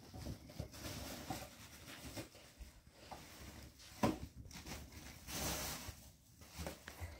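Handling noises as a black plastic bag is rummaged through: scattered rustling, with a sharp knock about four seconds in and a short burst of rustling a little later.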